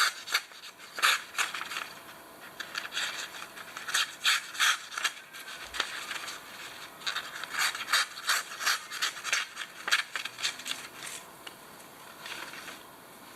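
Steel blade of a Victorinox penknife drawn in quick strokes across a small pocket sharpening stone, giving a run of short rasping scrapes. The strokes come in groups, with short pauses about five and a half seconds in and again near ten seconds.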